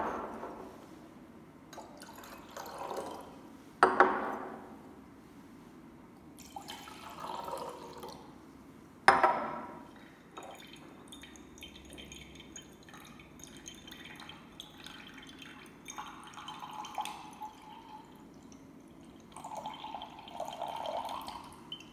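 Glass beakers set down on a lab bench with three sharp clinks, about 4 and 9 seconds in as well as at the start, and a water-based solution poured from one glass beaker into another several times, splashing into the glass, the longest pour near the end.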